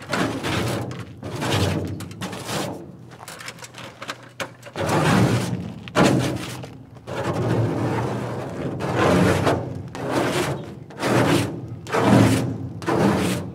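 Hand scraper dragged over a metal truck body panel, pushing off paint softened by chemical stripper in repeated long scraping strokes, about one a second, with a short pause around the fourth second.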